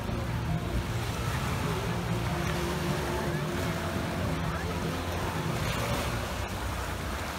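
Small waves lapping in shallow water at a beach, over a steady low rumble, with faint distant voices.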